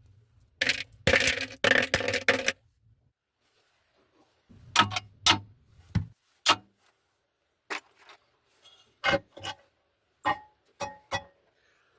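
Metal objects knocking and clinking together: a quick flurry of clanks about a second in, then a string of separate sharp clinks, several of them ringing briefly.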